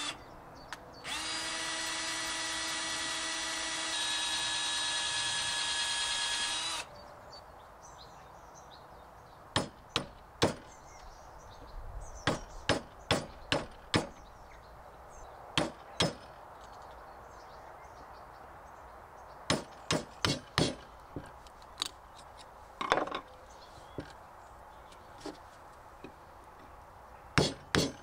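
Cordless drill boring into the old wooden handle stuck in the eye of an iron sledgehammer head: it runs briefly, stops for a moment about a second in, then runs steadily for about five seconds. After that come sharp knocks in short groups, louder than the drill, as a chisel is struck to chip the wood out of the eye.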